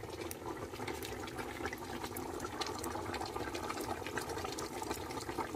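A pot of mithun meat stew boiling over a wood fire: a steady bubbling hiss with many small scattered pops.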